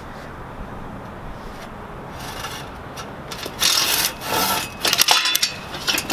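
Silky Katanaboy 500 mm folding saw, with its coarse 4-teeth-per-inch blade, cutting into a branch: rasping saw strokes that start about two seconds in and come faster toward the end, about half a dozen in all.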